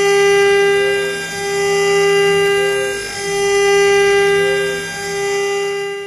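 1.5 kW water-cooled CNC router spindle running at 24,000 RPM, its 6 mm end mill milling a round pocket in aluminium along a helical ramp: a steady high whine with cutting noise that swells and fades about every two seconds as the cutter circles.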